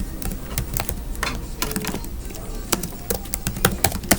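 Light plastic clicks and taps at an irregular pace, from smoke alarm units being handled, with a sharper click just before the end.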